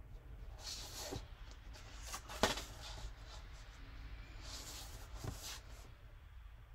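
HB pencil scratching on drawing paper in short strokes, with the paper shifting on the lap desk and one sharp knock about two and a half seconds in.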